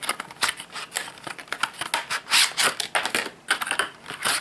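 Stiff clear plastic blister packaging of a phone case being pried open and handled: a run of irregular clicks and crackles, loudest about halfway through.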